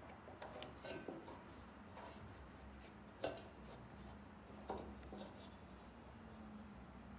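Light plastic clicks and rubbing as a white plastic high-voltage wire connector is pushed together and twisted at the end of a laser tube. The sharpest click comes about three seconds in, with another near five seconds, over a faint steady hum.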